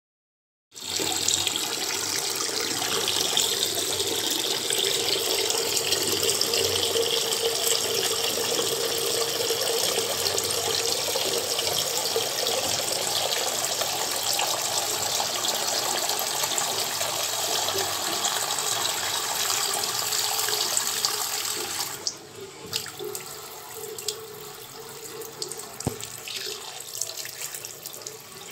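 Steady rushing background noise, starting after a moment of silence, that drops to a quieter hiss about twenty-two seconds in, with a few faint clicks near the end.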